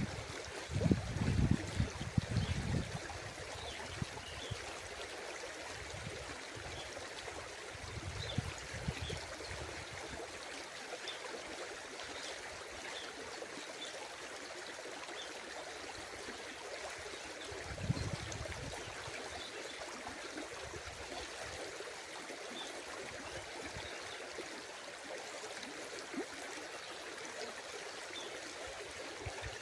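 River current flowing with a steady rushing hiss, with a few brief low rumbles in the first few seconds and again later on.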